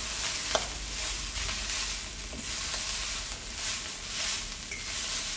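Cooked rice being stirred and turned with a wooden spatula in a stainless steel pan over the hob, a scraping rustle with light sizzling from the oil tempering underneath. The spatula knocks once against the pan about half a second in.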